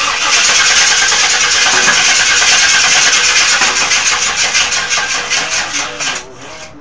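Chevrolet Tahoe engine being cranked by its starter for about six seconds with an even, rhythmic chugging, never catching, then cutting off suddenly. It won't fire even with starting fluid sprayed into the intake, and the owners suspect there is no spark.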